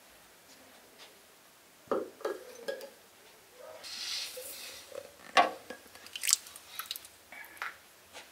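Glass jars being handled in and out of a pot of hot water with a cloth: a few dull knocks, a short splash of water about four seconds in, then several sharp clicks of jars and lids.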